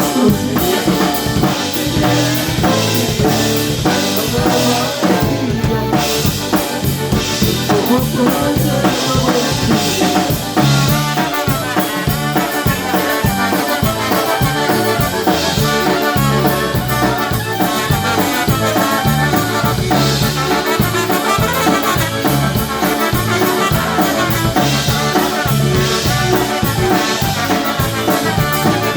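Live polka band playing an instrumental passage, with a drum kit keeping a steady beat under brass.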